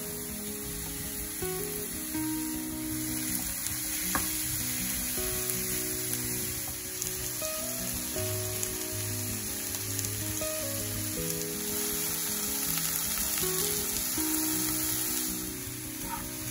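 Grated zucchini and halved cherry tomatoes sizzling steadily in a frying pan, with background music playing over it.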